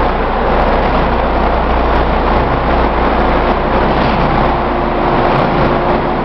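Industrial plastic crate washing machine running: a steady rushing noise over a constant low motor hum.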